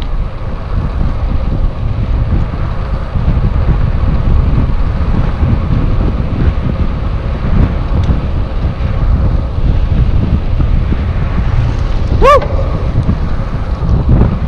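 Wind buffeting the microphone of a handlebar-mounted camera on a moving road bike, a loud, steady low rumble. About twelve seconds in, a brief pitched chirp rises and falls once.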